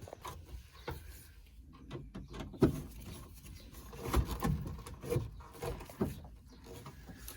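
Scattered clicks and knocks of small parts being handled, a washer being picked up and fitted at the dashboard clamp.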